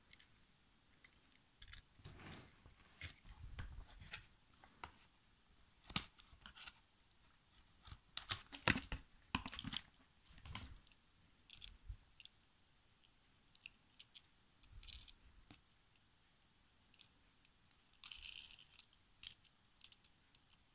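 Hands handling small die-cast toy cars and cardboard packaging: faint, irregular clicks, scrapes and rustles, with a sharp click about six seconds in and a busier stretch of handling noise a couple of seconds later.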